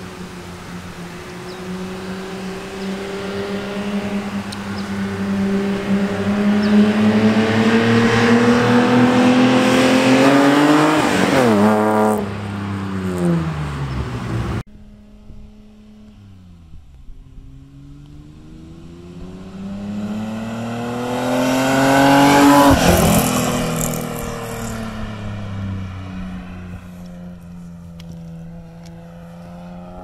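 1978 Datsun 280Z's straight-six, breathing through aftermarket headers and a Magnaflow muffler, in two fly-bys. Each time the engine note climbs steadily as the car approaches and drops sharply in pitch as it passes. The first pass cuts off abruptly about halfway through; the second fades away after passing.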